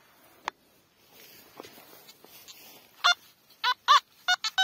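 Nokta Simplex metal detector sounding its target tone: about six short, shrill beeps from about three seconds in as the coil passes back and forth over a buried metal target. This is a strong, clear signal, a very good tone.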